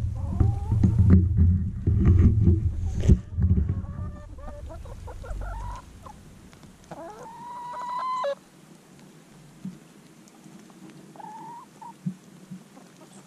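Free-range laying hens clucking and calling, with one drawn-out rising hen call about seven seconds in. For the first few seconds a loud low rumble with knocks from the GoPro's tripod being handled sits under the calls.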